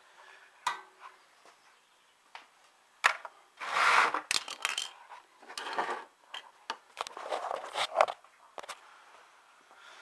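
Handling noises: irregular knocks, clicks and short scraping or rustling sounds as the camera is set down and the steel drum of a concrete mixer is handled. There is a sharp knock about three seconds in, a longer scrape around four seconds, and another sharp knock near eight seconds.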